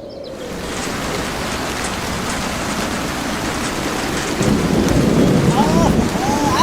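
Steady rushing of water, swelling louder with a deeper rumble about four seconds in.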